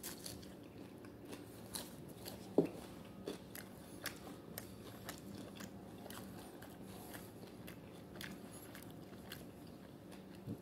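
A person chewing a chicken wing close to the microphone: faint, scattered mouth clicks, one sharper than the rest about two and a half seconds in.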